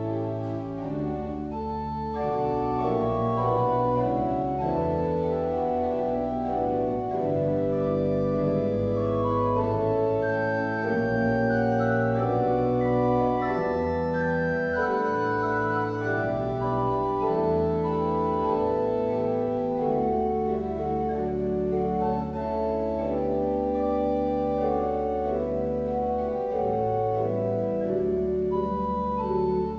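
Church organ playing a slow hymn prelude: full sustained chords that change every second or two over a deep pedal bass.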